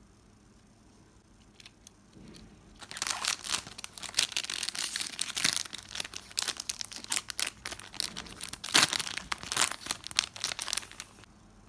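Packaging being torn open and crinkled by hand, a dense run of crackling with sharp snaps that starts about three seconds in and stops abruptly near the end.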